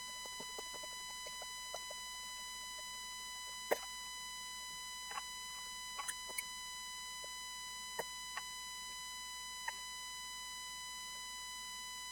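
Scattered small clicks and scrapes from cleaning the dirty contacts and connector pins of a Freelander 1 hazard switch, over a steady high whine with overtones. The loudest click comes about four seconds in.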